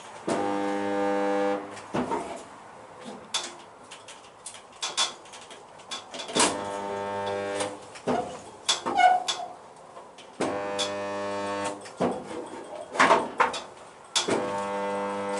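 Resistance spot welder humming steadily for about a second and a half per weld, four welds a few seconds apart, spot-welding the Mini's toe board panel. Clicks and knocks come between the welds as the welder's arms are clamped and repositioned.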